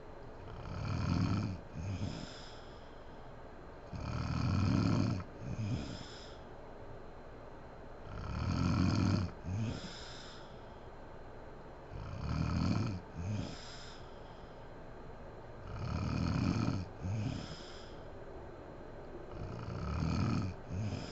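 A sleeping woman snoring heavily in a regular rhythm, about once every four seconds. Each snore is a long one followed closely by a short second one, six in all.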